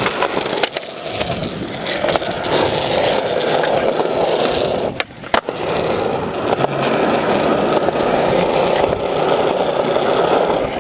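Skateboard wheels rolling over smooth concrete, a steady rumble with a few sharp clacks from the board. About five seconds in the rolling drops out for a moment and a single sharp clack follows.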